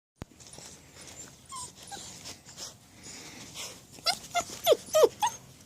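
Puppies whining: a quick run of about six short, high cries, each falling in pitch, comes about four seconds in after softer snuffling noise.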